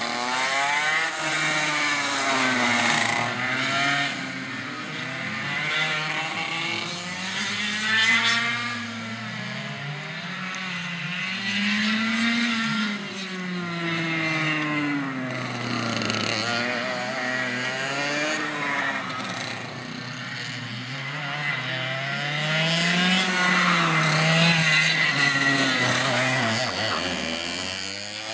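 Go-kart engines revving up and down as the karts accelerate out of corners and lift off into the next, the pitch rising and falling every few seconds, at times with more than one engine heard together.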